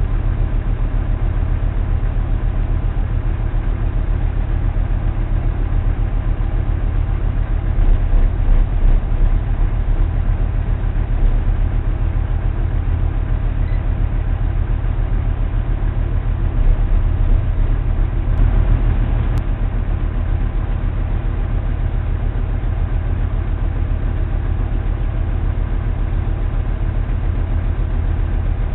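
Motor cruiser's engine running steadily, a low drone heard from on board, swelling slightly a couple of times partway through.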